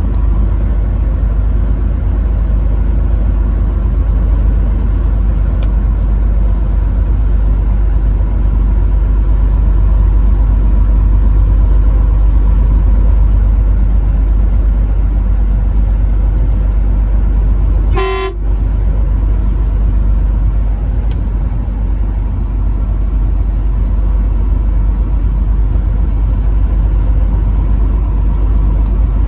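Steady low rumble of a truck driving on the road, with one short horn toot about two-thirds of the way through.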